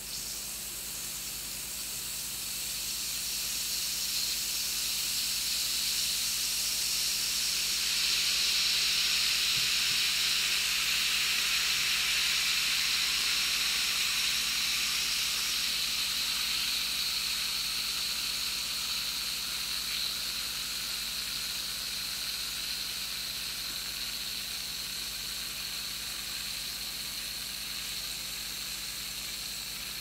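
Effervescent vitamin C tablet fizzing as it dissolves in a glass of water: a steady hiss of bursting bubbles. It builds over the first several seconds and then slowly eases off.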